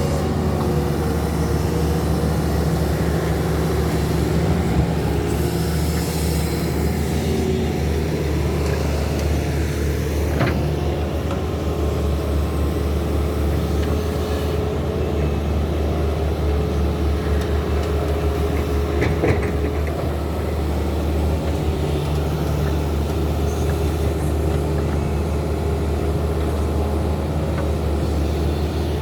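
Excavator diesel engines running steadily as they dig, with a couple of sharp knocks about a third and two thirds of the way through.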